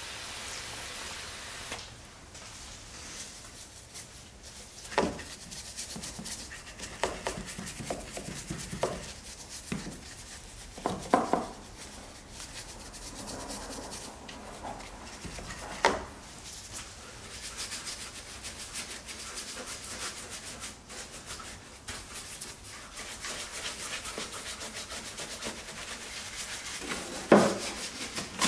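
A spray hisses over the engine bay for about the first two seconds. Then a bristle brush scrubs wet engine-bay surfaces in repeated rubbing strokes, with scattered knocks and taps; one sharp knock near the end is the loudest.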